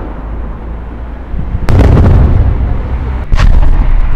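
Aerial firework shells bursting: loud booming detonations with long rolling echoes. Two sharp bangs stand out, one at nearly two seconds in and another just over three seconds in.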